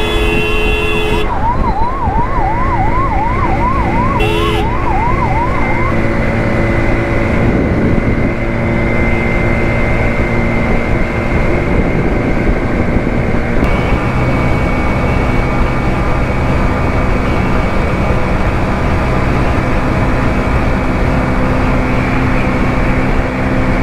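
An emergency-vehicle siren yelping, sweeping rapidly up and down about twice a second, for the first six seconds. A vehicle horn sounds at the start and briefly again about four seconds in. Under it runs the steady hum of a motorcycle engine and road traffic.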